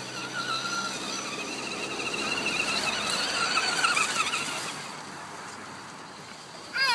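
Electric motor and gear drive of a radio-controlled scale rock crawler whining under load, the pitch wavering up and down with the throttle. Near the end a short, louder whine falls quickly in pitch as the motor spins down.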